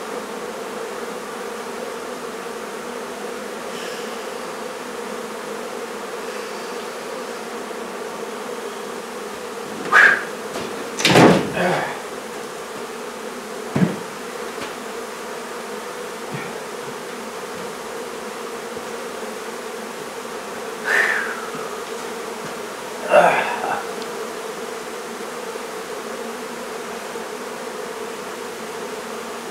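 A mass of honey bees buzzing steadily. Several brief louder sounds come through the middle, two of them falling in pitch, with a short knock among them.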